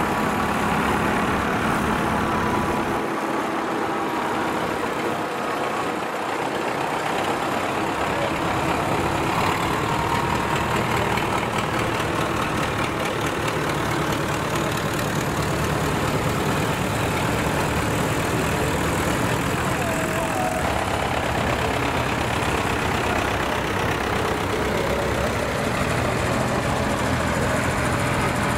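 Engines running steadily at idle in a dense background of mixed noise, with a low engine hum growing stronger about halfway through.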